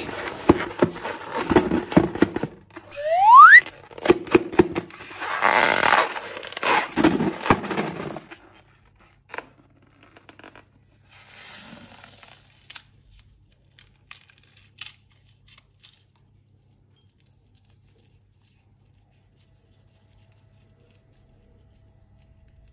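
Crunchy slime and a rubber balloon being squeezed and handled, with crackling and clicking and a short squeak rising in pitch about three seconds in. The sound thins to scattered small clicks after about eight seconds.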